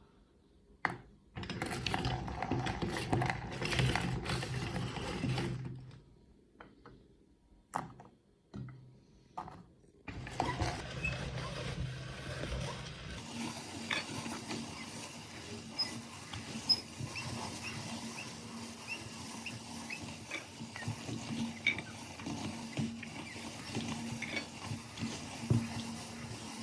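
Meat grinder running in two short spells with clicks and knocks between them, then running steadily with many small cracks and clicks as it grinds Oreo cookies.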